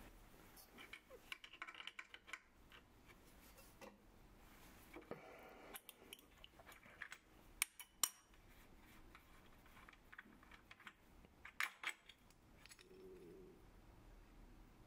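Scattered metallic clicks and clinks of hand tools and fittings being handled at a stopped lathe, as an adjustable spanner is used and the freshly cut brass clock wheel is taken off its arbor. The sharpest clinks come as a pair about eight seconds in and another pair near twelve seconds.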